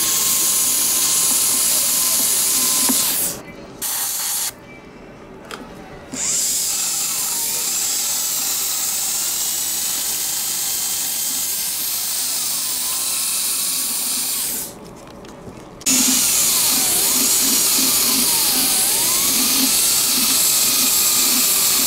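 Dental handpiece running against a composite resin filling while it is finished and polished. It gives a steady airy hiss with a whine that slides up and down in pitch as the tool is pressed and eased. It stops and restarts a few times: briefly about three seconds in, for a couple of seconds around five seconds, and again near fifteen seconds.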